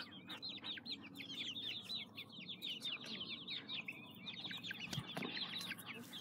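A flock of young chicks peeping continuously, many short high chirps overlapping.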